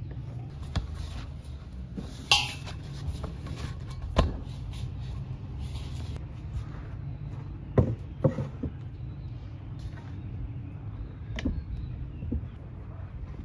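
Dough being kneaded by hand in a large stainless-steel bowl and then pressed on a wooden board, with several sharp knocks and clinks of the bowl and board over a steady low rumble. The loudest knock, with a short metallic ring, comes about two seconds in.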